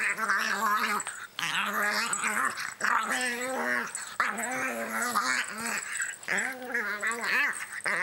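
Pug puppy growling in play as it lunges at a hand, in long wavering runs broken by short pauses.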